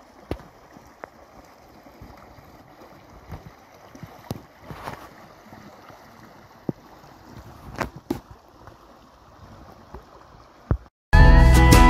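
Steady rushing and gurgling of a shallow, fast-flowing stream, with a few sharp knocks. Loud guitar music cuts in abruptly near the end.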